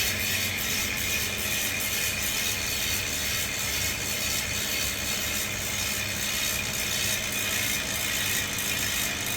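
Ratchet freehub of a Bigrock carbon MTB wheel ticking as the wheel spins freely, a fast, even clicking buzz that starts suddenly.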